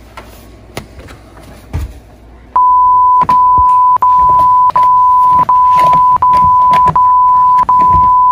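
A loud, steady, high bleep tone at one pure pitch. It starts abruptly about two and a half seconds in and holds for nearly six seconds, broken by short gaps about every three-quarters of a second.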